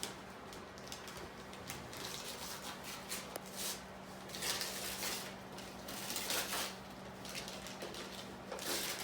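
Wrapping paper rustling and tearing in several bursts as a Christmas present is unwrapped, over a faint steady hum.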